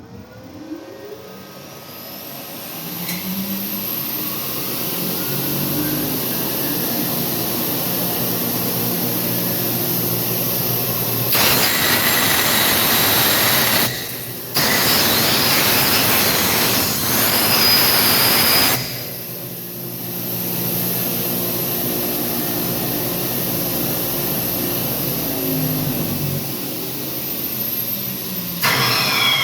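A 1925 Spencer Turbine central vacuum's 7.5 hp motor and turbine spin up on a variable frequency drive with a rising whine, then run at a steady hum. About eleven seconds in, a loud rush of airflow comes in for about seven seconds, dropping out briefly once, and the whine then returns. Near the end the pitch starts to fall as the machine slows.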